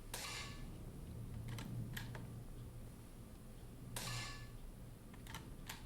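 Two quiet shots from a Weihrauch HW 110 T pre-charged air rifle, about four seconds apart, fired through a chronograph in a ten-shot string. Between them come a few short sharp clicks as the rifle is cocked and the next pellet loaded.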